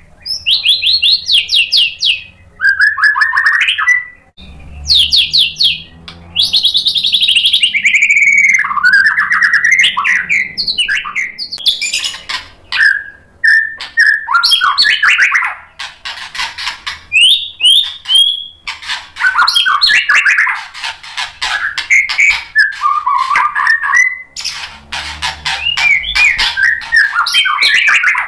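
White-rumped shama singing a long, varied song: rapid chattering trills mixed with whistled notes that slide up and down, broken by short pauses between phrases.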